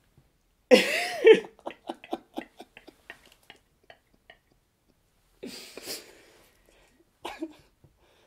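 Human vocal sounds without words. About a second in comes a loud cry whose pitch rises and falls, then a run of short bursts that slow down and fade. Two more short noisy bursts follow near the end.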